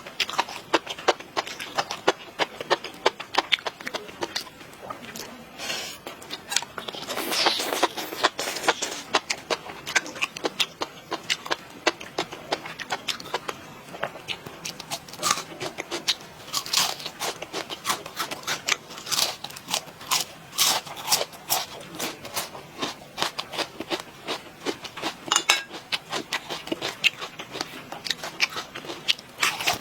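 Close-miked eating: a continuous run of crunching, chewing and wet mouth clicks, several a second.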